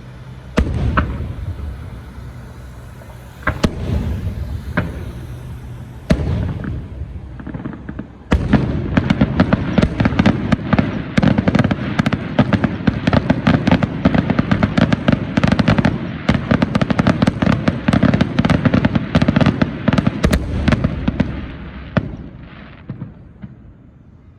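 Fireworks: a few separate bangs, each followed by a fading rumble, then, starting about a third of the way in, a long dense run of rapid crackling pops that fades out near the end.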